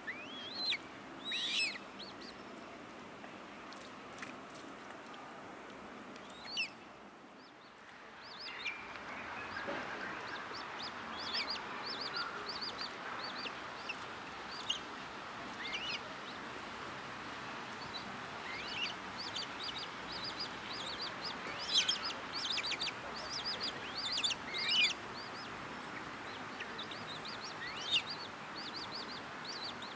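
Juvenile Eurasian coots begging while an adult feeds them: many short, thin, high squeaky calls, some in quick runs, with the loudest near the middle and end.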